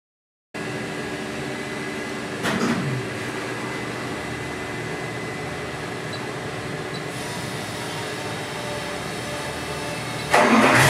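Steady hum of dyno-cell equipment with a few steady tones, and a brief louder noise about two seconds in. Near the end the starter is engaged and the Ford 427 SOHC Cammer V8 cranks over and fires with a sudden, much louder sound.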